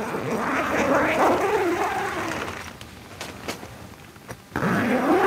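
An animal's long, wavering cry, with a second one starting near the end. In between come a few sharp clicks as a tent zipper is drawn open.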